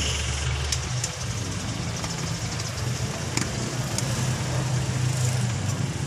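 Steady hum of an idling engine and street traffic, with a few light ticks.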